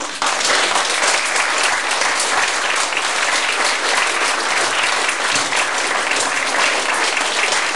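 Audience applauding, breaking out all at once and holding at a steady level: dense, continuous hand-clapping from a room full of people.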